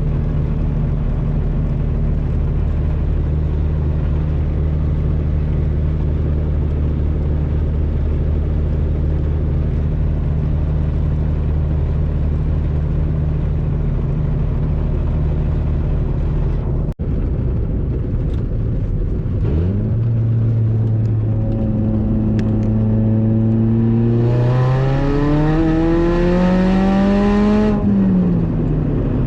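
Supercharged 2.0 L four-cylinder of a 2005 Chevy Cobalt SS, heard from inside the cabin, first droning steadily while cruising. After a cut about two thirds of the way through, the engine pulls up through the revs in a steady climb, then the revs drop sharply near the end.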